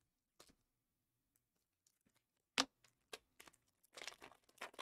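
Trading cards and a foil card pack being handled: scattered light clicks and rustling, with one sharp click about two and a half seconds in and a closer run of rustles near the end.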